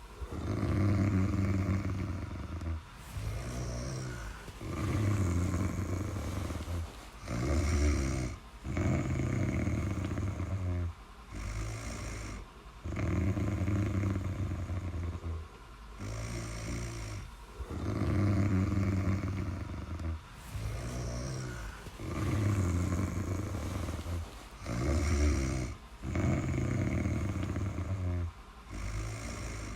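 Snoring in an even rhythm: a loud, low snore of about two seconds on each breath alternating with a quieter breath, roughly one cycle every four to five seconds.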